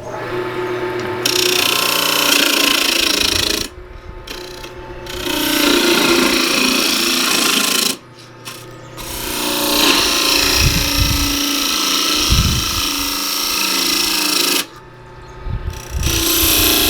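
Lathe gouge cutting into a spinning cedar bowl blank to form a tenon for the chuck: a loud scraping hiss in several passes, each broken off by a short lull, with a few low knocks in the middle.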